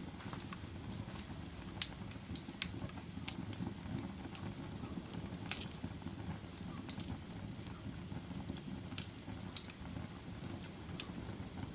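Fire crackling: a steady low rumble of burning with sharp pops and snaps scattered irregularly through it, the loudest about two seconds in and again in the middle.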